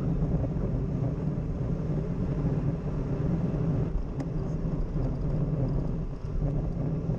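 Steady wind buffeting on the microphone with low road rumble while riding along the street, dropping slightly near the end.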